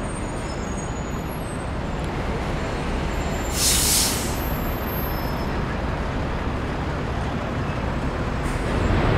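Steady city street traffic noise, with one short, loud hiss about three and a half seconds in, like a heavy vehicle's air brakes releasing.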